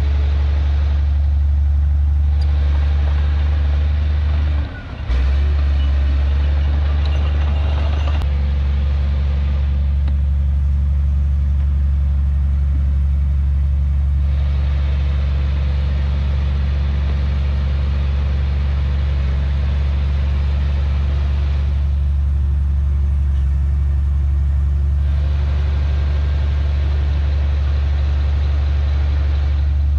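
Heavy diesel engine of earthmoving machinery running steadily with a deep hum. The hum drops out briefly about five seconds in, then carries on unchanged.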